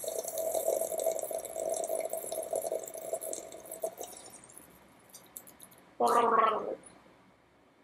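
A person slurping tea from a mug for about four seconds, then, about six seconds in, a short loud gargle with the head tipped back.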